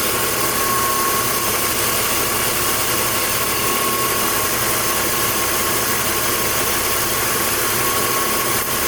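BMW M54 straight-six engine idling steadily with the electrical load on and a newly replaced alternator charging, with a thin steady tone above the engine sound. The owner hears no whistling or whining with this alternator, the noise that the faulty one had made.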